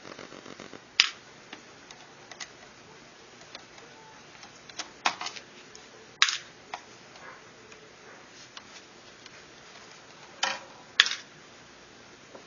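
A small screwdriver and laptop screws clicking and tapping as the screws holding the screen are taken out. There is a quick run of faint ticks at the start, then a handful of separate sharp clicks spread out, the loudest about a second in, around six seconds in and near the end.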